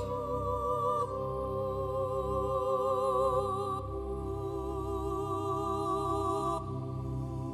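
Background music: a song with long, wavering melody notes held over a pulsing low bass.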